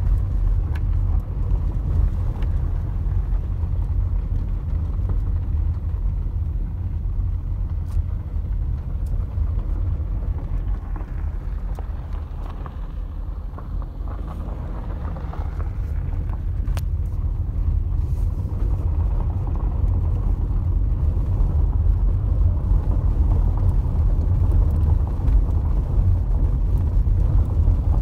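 Car driving on a dirt and gravel road, heard from inside the cabin: a steady low road and engine rumble that eases a little about halfway through and builds again, with a few faint clicks.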